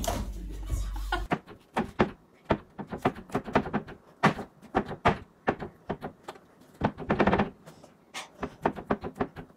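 Irregular taps and knocks of a hand on flat, handleless wall-cabinet panels, one after another, as someone feels for the way they open. A low rumble fills about the first second.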